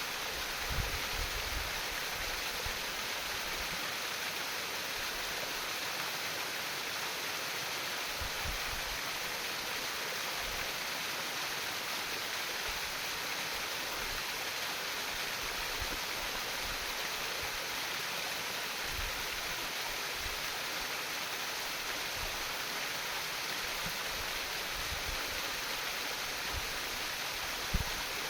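Shallow stream water babbling and trickling steadily over stones, an even rushing hiss. There is a brief knock near the end.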